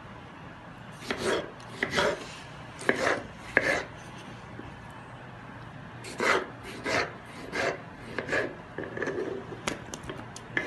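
Kitchen knife slicing and dicing ripe tomatoes on a wooden cutting board: short rasping strokes with a knock of the blade on the wood, coming in irregular groups with a pause in the middle. Near the end the knife scrapes the diced pieces off the board with a run of lighter clicks.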